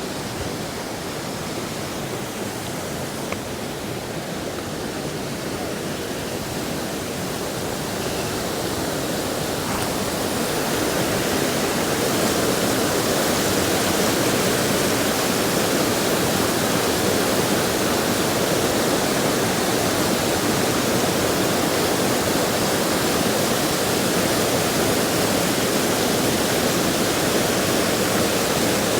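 River in spate after heavy rain rushing over rocks and rapids: a steady roar of white water, growing louder about ten seconds in and then holding steady.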